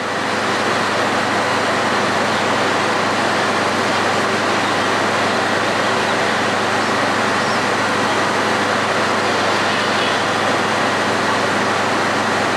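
Steady rushing outdoor noise of a railway station beside road traffic, as a diesel-hauled passenger train moves off along the tracks; no horn, clank or other single sound stands out.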